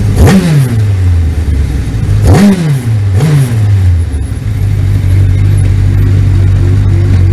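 Sports 1000 racing car's 1000 cc motorcycle engine, heard from the cockpit, blipped three times in quick rises and falls of pitch as the car slows to a stop, then idling steadily from about four seconds in.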